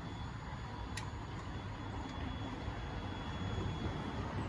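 Steady low background rumble with one sharp click about a second in.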